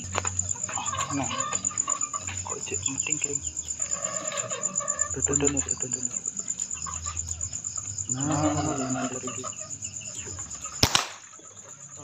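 Cricket chirping in a steady, fast-pulsing high trill, with a few low vocal sounds in between. Near the end comes a single sharp crack, the shot of a pigeon-hunting air rifle.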